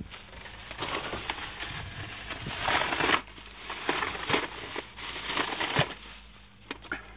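Clear plastic bag crinkling and rustling as it is handled and emptied of VHS tapes, a run of irregular crackles, loudest around three seconds in.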